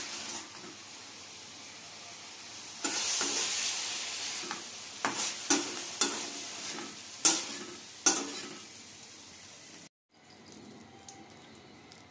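Mushrooms frying in a steel wok, sizzling, while a metal spatula scrapes and knocks against the pan as they are scooped out, with several sharp clanks in the middle. The sizzle fades and cuts off near the end.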